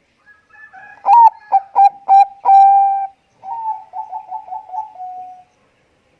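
Zebra dove (Bangkok-strain perkutut) singing its cooing song. A few short clipped coos lead into a long held coo, followed by a quicker run of coos that fades away.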